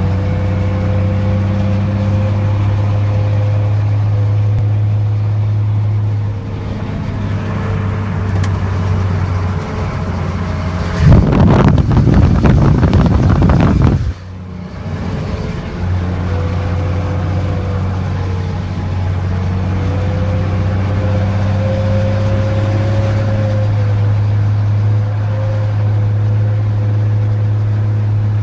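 12-valve Cummins diesel running with a steady low drone and a thin, wavering whine over it; about eleven seconds in, a loud rough noise takes over for about three seconds before the drone returns. The sound is the sign of a blown turbocharger bearing, which the owner hears only when the engine is under load.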